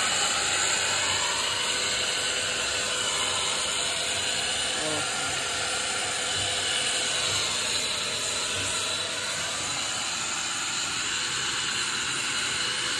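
Bosch circular saw running free without cutting, a steady motor whine and rush of air from the spinning blade, used as a blower to fan a charcoal fire.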